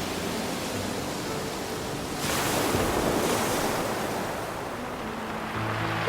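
Ocean surf washing on a pebble beach, one wave breaking loudly about two seconds in and then drawing back. Soft background music comes back near the end.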